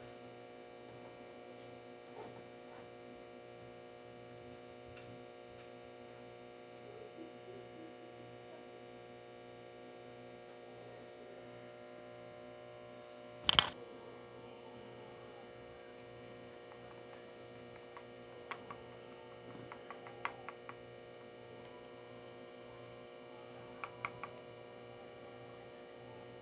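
Steady electrical hum, with one sharp knock about halfway through and a few light clicks and taps in the second half as a small knife mixes paint in a plastic cup.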